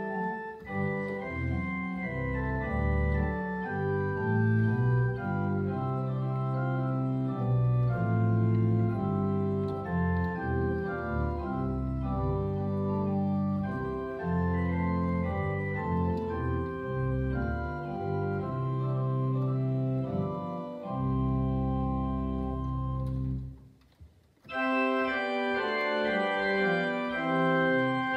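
Two-manual church organ playing a slow piece in sustained chords over a bass line. The sound drops out briefly about three-quarters of the way through, then the playing resumes.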